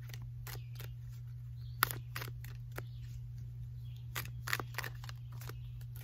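Tarot cards being shuffled and handled: irregular light clicks and snaps of the cards, one sharper snap about two seconds in, over a steady low hum.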